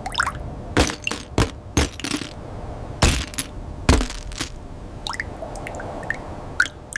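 A string of sharp, irregular cracks and clinks, like breaking and falling debris, with the loudest hits about three and four seconds in.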